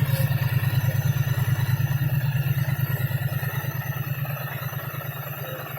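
Triumph Bonneville T100's parallel-twin engine running with an even, rapid exhaust beat, growing gradually fainter through the second half.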